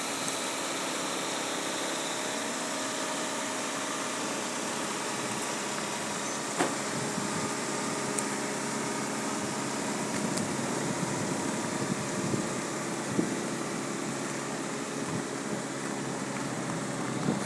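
A quad bike engine idling steadily, with a few light clicks.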